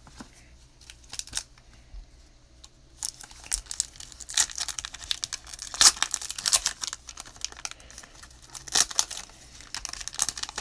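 A trading-card pack wrapper being torn open and crinkled. A few light clicks and rustles come first, then about seven seconds of dense crackling.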